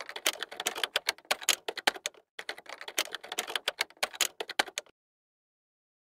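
Typing sound effect: rapid keystroke clicks in two runs of about two and a half seconds each, with a short break between them.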